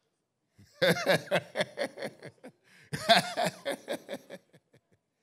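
A man laughing into a handheld microphone in two bouts of quick, repeated chuckles, the first starting about a second in and the second about three seconds in.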